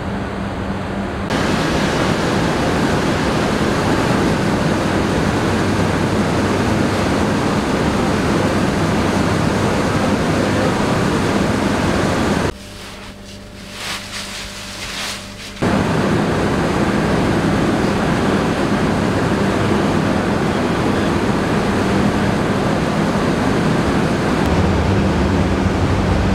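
Rice mill machinery running: a steady, loud rushing noise with a low hum. It cuts to a much quieter stretch with a few faint clicks for about three seconds near the middle, then resumes.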